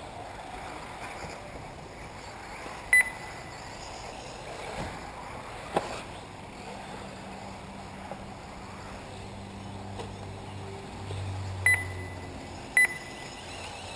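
Three short, sharp electronic beeps from the race's lap-timing system, one about three seconds in and two close together near the end, over a steady background of wind and distant running cars. A single click comes in the middle.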